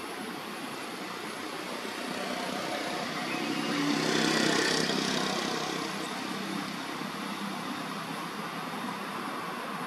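A vehicle passing by: a steady noise that swells to its loudest about four seconds in, then fades away.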